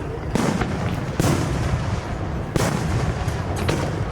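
Aerial fireworks shells bursting: four sharp booms in about four seconds, each trailing off in an echo, over a steady low rumble.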